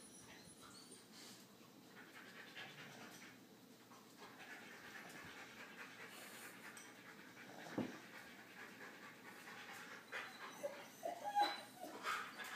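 Siberian husky panting steadily, with a few short, louder sounds near the end.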